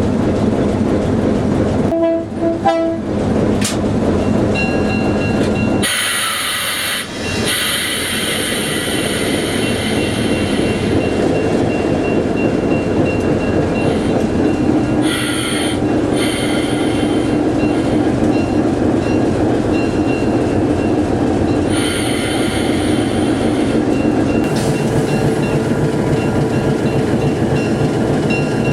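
Diesel locomotive running steadily in the yard, with a brief horn note about two seconds in and a high-pitched squeal from the wheels or brakes that comes and goes.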